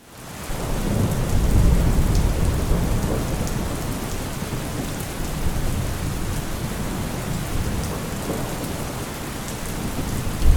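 Steady heavy rain falling, with a low rumble of thunder a second or two in.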